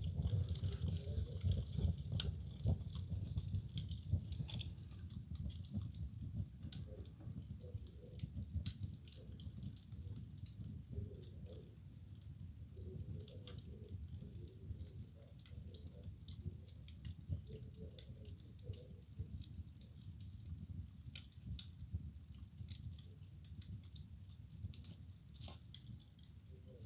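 Wood fire burning in a fireplace: a low rumble of flames with frequent, irregular sharp crackles and pops. The rumble is strongest in the first few seconds.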